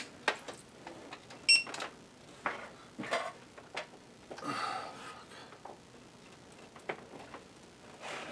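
Scattered clicks and knocks of an Amiga 1200's plastic case and its cables being handled and set down on a desk, with a brief high squeak about a second and a half in.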